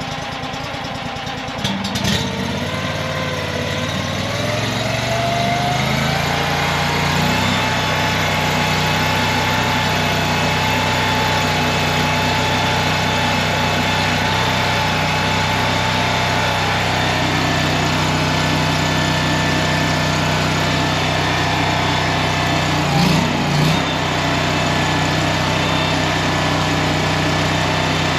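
Mini skid steer engine running under hydraulic load, driving a stump grinder. About two seconds in, the engine note and a hydraulic whine rise in pitch for several seconds as the grinder wheel spins up, then hold steady, with two brief bumps near the end.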